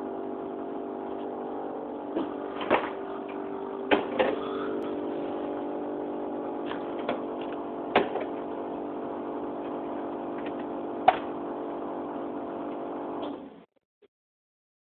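Refrigerator humming steadily with several sharp clicks and knocks, then the hum stops suddenly near the end.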